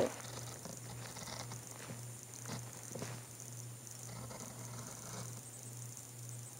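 Faint scratching of drawing strokes on paper, in a couple of short spells with a few light ticks, over a low steady hum.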